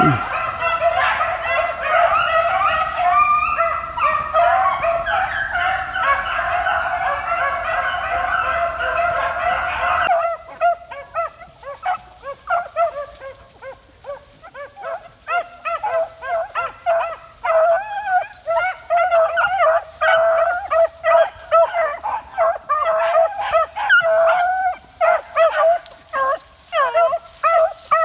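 A pack of beagles baying while running a rabbit, many voices overlapping. About ten seconds in the sound cuts abruptly, and the baying goes on as separate, spaced calls that grow busier near the end.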